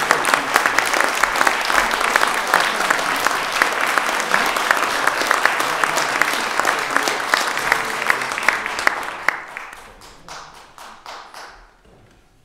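Audience applauding a performer as he comes on stage, dense clapping that thins out about nine seconds in and dies away to a few last scattered claps.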